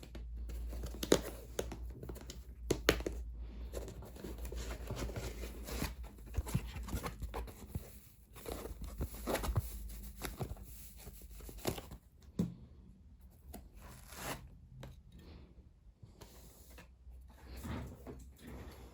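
Paper or plastic tearing and crinkling in irregular rustles, with sharp clicks, the loudest about one and three seconds in.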